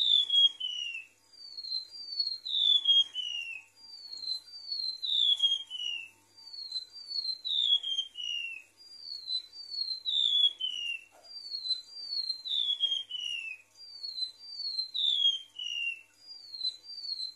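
Golden-bellied gerygone (remetuk laut) singing: repeated phrases of high, thin whistled notes, each note sliding down in pitch and each phrase stepping lower, a new phrase about every two and a half seconds.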